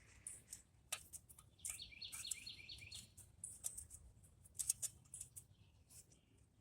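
Faint, scattered light clinks and clicks of metal hand tools being handled, with a short run of rapid high chirps from a bird about two seconds in.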